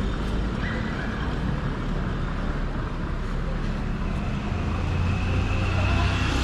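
City street traffic: a steady rumble of passing cars, with a vehicle engine's low drone swelling in the second half, and a faint steady high whine over the last few seconds.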